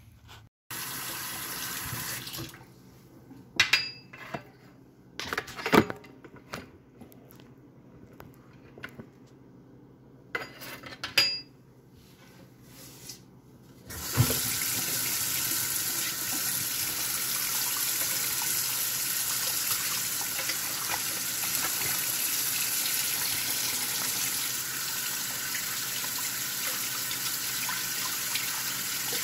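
A few sharp knocks and clicks. Then, about halfway through, a kitchen tap comes on and water runs steadily into the sink, splashing over alewives rinsed by hand under the stream.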